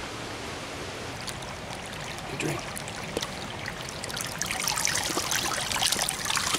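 Shallow creek trickling steadily. From about a second in, a dog moving in the water close by adds splashes and sloshing that grow louder and busier toward the end.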